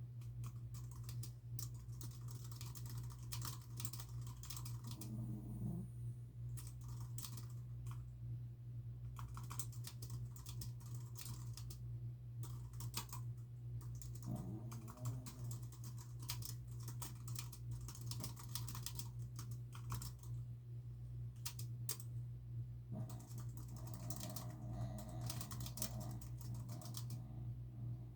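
Typing on a computer keyboard in quick, irregular runs of key clicks with short pauses between them, over a steady low hum.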